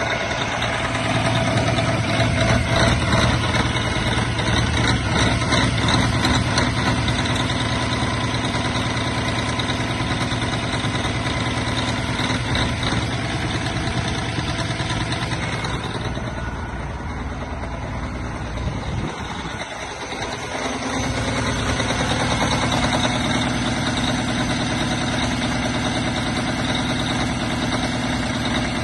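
Semi truck's diesel engine idling steadily, heard up close in the open engine bay, with a brief dip in its low rumble about two-thirds of the way through.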